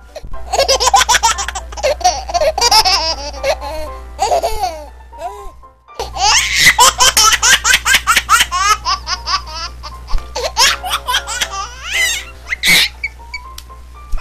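Peals of loud, high-pitched laughter over music, breaking off briefly about six seconds in and then starting again.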